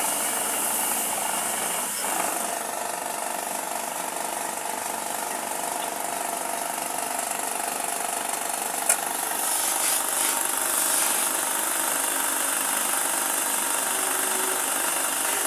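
A power tool running steadily on wood, with a sharp click about nine seconds in.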